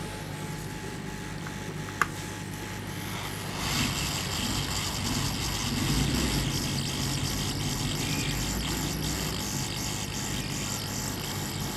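A click about two seconds in, then a hot-air rework gun starts blowing about three and a half seconds in: a steady airy hiss aimed at a shorted 7400 NAND-gate chip to melt its solder so the chip can be lifted off.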